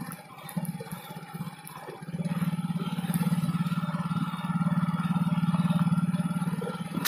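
Small motorcycle engine running as the bike rides along a dirt track, low and uneven for the first two seconds, then pulling steadily louder from about two seconds in.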